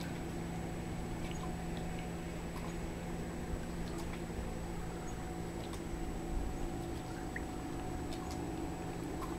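Steady background hum with a faint high whine, a few faint scattered ticks, and one short faint chirp about seven seconds in.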